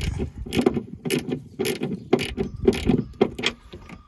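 Ratchet wrench with a socket tightening the nuts that hold the backup camera, its pawl clicking in short runs about twice a second as the handle is swung back and forth.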